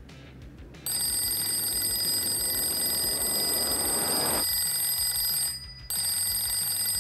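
Electronic wake-up alarm ringing with a steady, high-pitched tone. It starts about a second in, breaks off briefly near the end, then starts again.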